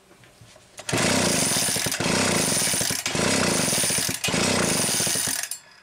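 Homelite 360 chainsaw cranked over on its recoil starter, four quick pulls in a row, each about a second long, spinning the flywheel past the ignition coil to check for spark. The ignition is still not firing as it should.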